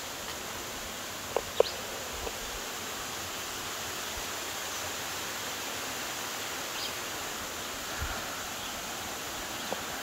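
Steady rush of a stream running over smooth rock at the lip of a waterfall, with a couple of light knocks about a second and a half in.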